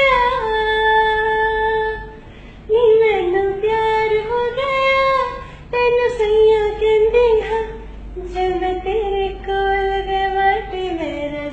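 A woman singing a Punjabi song unaccompanied, in long held, wavering notes, with short breaks for breath about two and five and a half seconds in.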